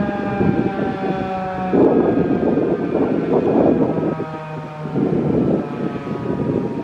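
Federal Signal 2001-DC outdoor warning siren winding down at the end of its one-minute alert, its tone falling slowly in pitch. Gusts of wind buffet the microphone over it, beginning about two seconds in.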